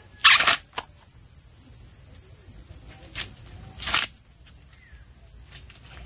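Steady high-pitched drone of insects. Over it come two short rustling or crackling noises, one about half a second in (the loudest moment) and one about four seconds in, likely from handling the plants.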